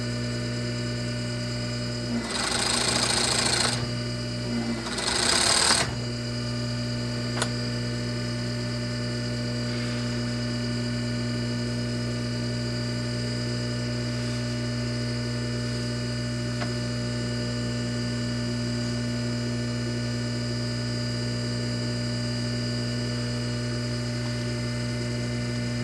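Olleo Plushmaster 2914 fur sewing machine humming steadily, with two short, louder bursts of stitching, one about two seconds in and another about five seconds in, and a single light click soon after.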